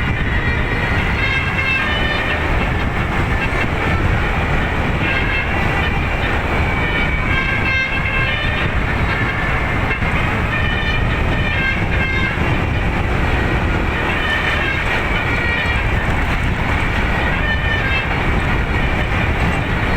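Telolet basuri multi-note musical air horn on a Greenvalor bus playing a melody non-stop: phrases of quick, high pitched notes that change pitch every fraction of a second, over a steady rumble.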